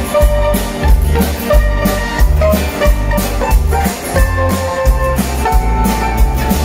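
Live folk band playing an instrumental passage without singing: acoustic guitars, accordion and drum kit over a steady beat.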